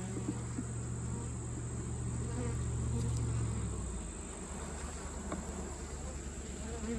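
Honeybees buzzing around an opened hive, stirred up and agitated, with a deeper hum that eases off about four seconds in.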